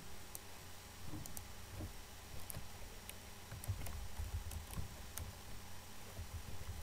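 Faint computer keyboard typing: scattered light keystrokes at an uneven pace, with dull low knocks underneath.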